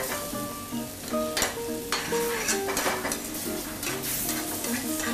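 A wooden spatula stirring chicken pieces through a simmering, sizzling coconut-milk curry sauce in a metal pan, with several short scraping strokes against the pan. Soft background music plays underneath.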